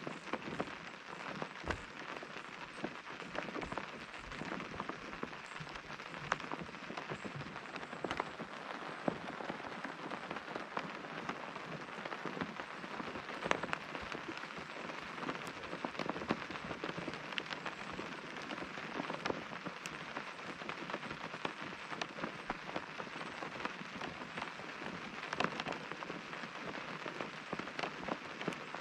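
Rain pattering on a tent's fabric: a steady hiss of rainfall with many individual drops striking sharply and irregularly.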